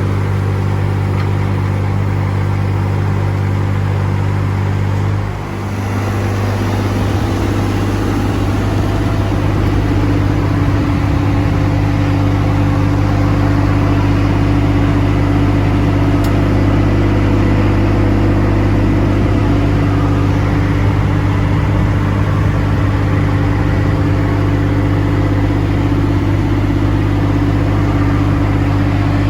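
Yanmar diesel engine of a Sunward SWE18UF mini excavator running at a steady speed. It dips briefly about five seconds in, then runs on steadily and a little louder.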